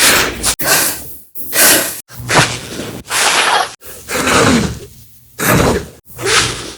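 A woman's exercise exertion sounds: short forceful breaths and grunts, about eight in quick succession, each falling in pitch.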